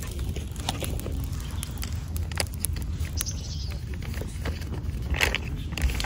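Wood fire burning in a small compact grill-stove, crackling with scattered sharp pops over a steady low rumble. A bird calls briefly a little after the middle and again near the end.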